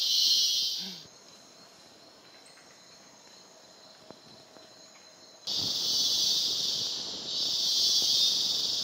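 Chorus of tropical rainforest insects: a loud, high buzzing that stops abruptly about a second in, leaving a faint steady high hum, then returns suddenly about five and a half seconds in, swelling and fading in waves of about a second and a half.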